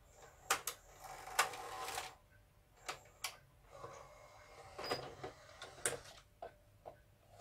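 Hitachi VT-S1000 S-VHS VCR ejecting a cassette: its motorized loading mechanism and front drawer run in two short whirring stretches, set among a series of sharp mechanical clicks, as the drawer slides out.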